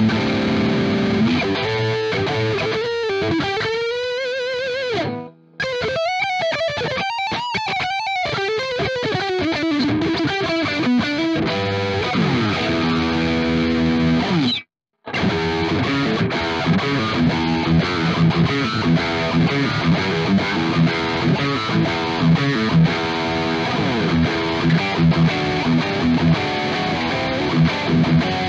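Leeky X25 electric guitar played through high-gain distortion: Friedman and EVH 5150 blue-channel amp models blended in stereo and boosted by an 808-style overdrive. Single-note lead lines with wide vibrato and bends in the first half, a short break about halfway through, then a rhythmic riff with regular accents.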